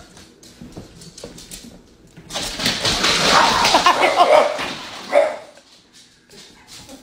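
French bulldog barking and whining in fear, in a loud burst of about two and a half seconds starting about two seconds in, then one short sharp cry about five seconds in.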